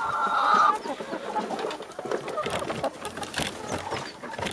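Kuroiler chickens clucking and calling while they feed, with one loud drawn-out call in the first second, then quieter clucks among short clicks and rustles.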